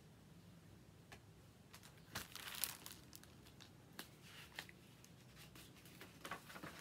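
A picture book's page being turned: a short paper rustle about two seconds in, then a few faint ticks from handling the book, over quiet room tone.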